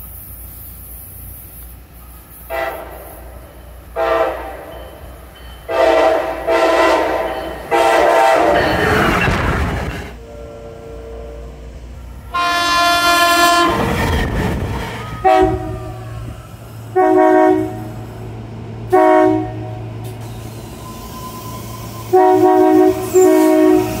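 SEPTA Regional Rail train horns sounding a string of blasts, a horn show: about ten blasts in all, mostly short toots with a few held for about two seconds. The rush of a train passing close by follows the longer blasts.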